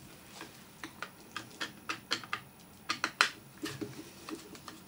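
Torx screwdriver working the screws out of a DeWalt 18V XRP drill's plastic housing: a run of light, irregular clicks, about three a second, the loudest a little past the middle.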